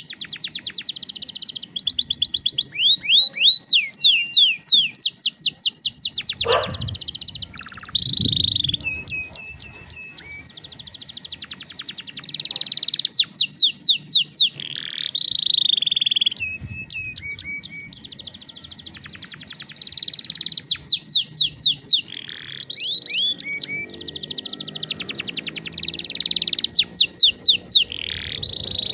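Domestic canary singing: fast, high trills of sharply falling notes, in phrases of a second or two with short breaks between them.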